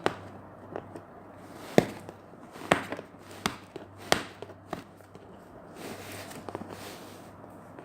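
Handling noises at close range: a run of sharp, separate taps and knocks, about half a dozen spread over a few seconds, between stretches of quiet.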